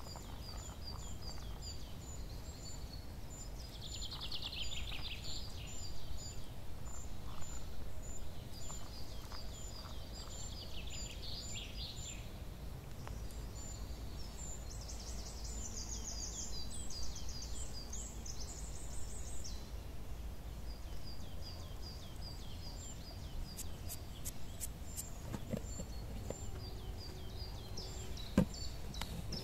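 Forest ambience: small birds chirping in short, high, evenly repeated calls, with bursts of rapid trilling, over a low steady rumble. A couple of sharp knocks come near the end.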